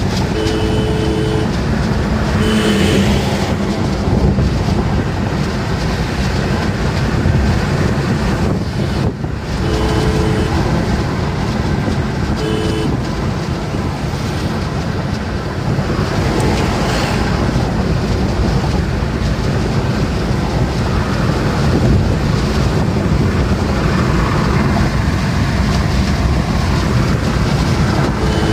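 Road and wind noise inside a car travelling fast on a highway, with a horn honking five times, two notes sounding together. The longest honk is at the very start; shorter ones come about three, ten and thirteen seconds in, and the last comes just at the end.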